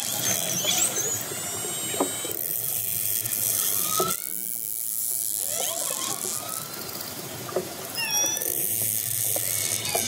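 Orcas calling underwater, picked up by a hydrophone: squealing calls and short rising whistles, with a few sharp clicks and a hiss of water noise beneath.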